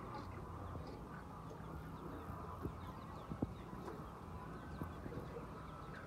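A large flock of chickens clucking and calling together in a steady murmur, with two short sharp taps around the middle.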